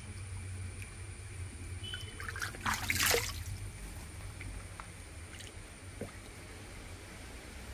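Shallow water in a basin trickling and sloshing as a freshly caught fish moves in it, with one louder splash about three seconds in.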